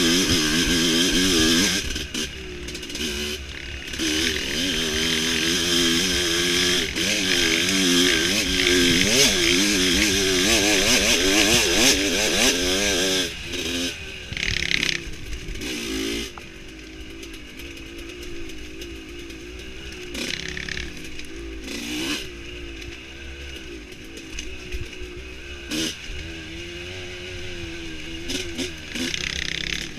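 Dirt bike engine revving up and down as the bike rides a rough forest single-track, heard close up from on the bike. The engine is louder and works harder for the first half, then runs quieter and lower about halfway through.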